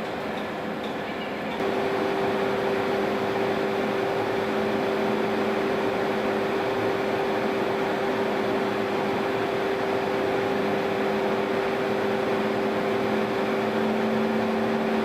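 Steady drone of machinery running in a biomass-fired steam boiler plant: a hum with a few steady tones over a noisy rush. About a second and a half in, it gets suddenly louder and a new steady tone joins.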